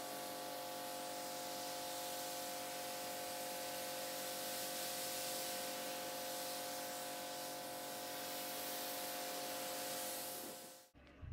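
Pressure washer jet spraying water against a car's side, rinsing off snow foam: a steady, even hiss with a steady whine of several tones underneath. It cuts off abruptly near the end.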